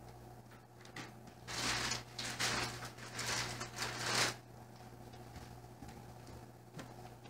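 Someone rummaging: a string of rustling, handling noises lasting about three seconds, over a low steady hum.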